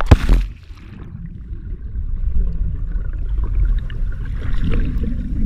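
A splash as a swimmer and GoPro plunge into a swimming pool, followed by the muffled, low rumble of water and bubbles heard from underwater as he swims.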